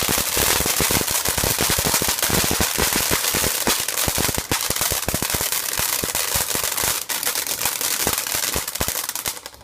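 Garden firework going off as a fast, continuous crackle of small bangs, many each second, that stops near the end.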